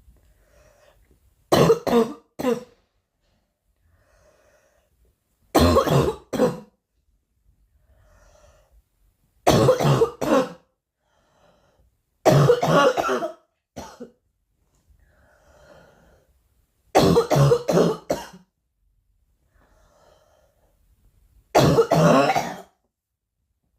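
A girl coughing in six short fits of two or three coughs each, a few seconds apart, with faint breaths drawn in between the fits.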